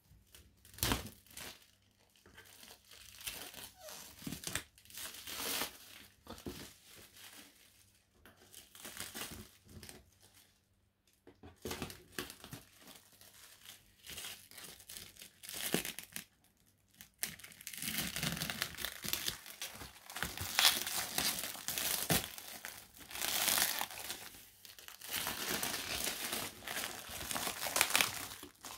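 Black plastic wrapping being cut with scissors and torn and crinkled off a cardboard parcel, in irregular rustling bursts with a few sharp clicks. It is sparse in the first half and grows into nearly continuous, louder crinkling and tearing in the second half.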